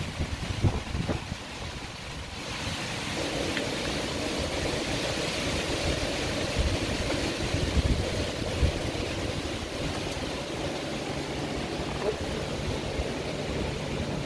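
Heavy rain and strong wind of a severe thunderstorm, with gusts buffeting the microphone. The hiss of the rain swells about two and a half seconds in and then holds steady.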